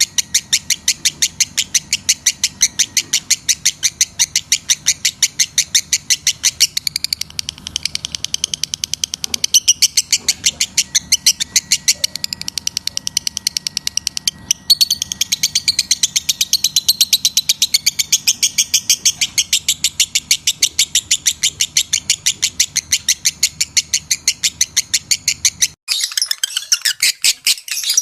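Lovebird in breeding condition chirping in a rapid, even, unbroken run. About two seconds before the end it switches abruptly to a busier, more irregular chatter.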